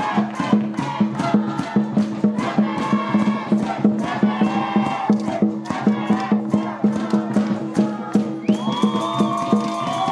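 Background music with a steady beat, a repeating bass line and a melody on top.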